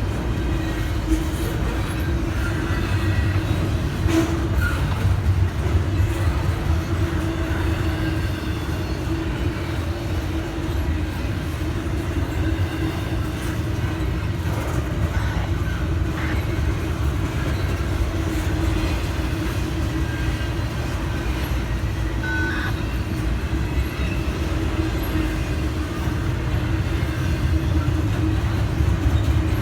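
Norfolk Southern intermodal freight train rolling steadily past a grade crossing: continuous wheel-on-rail noise from the cars with a constant low hum and scattered faint clicks.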